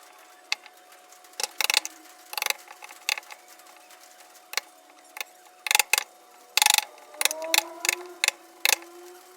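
Irregular sharp taps and knocks, some single and some in quick clusters of two or three, the loudest coming in the second half.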